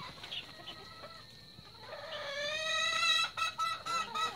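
A chicken calling: about two seconds in, one long drawn-out call, then a run of short choppy notes.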